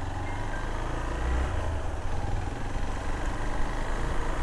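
Motorcycle engine running at low revs as the bike rolls slowly along the road, heard from the rider's seat.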